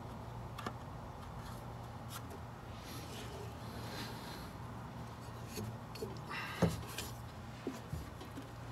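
A few faint knocks and scrapes as a steel sway-bar bracket and rubber bushing are positioned by hand against a car's underbody, the sharpest knock about two-thirds of the way in, over a steady low hum.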